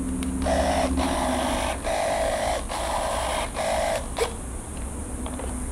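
Aileron servos in a foam RC airplane wing whirring in about five short runs under a second each, driven back and forth from a servo tester, ending in a sharp click.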